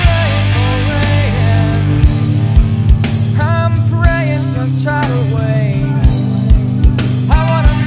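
Hard rock music with singing and drums.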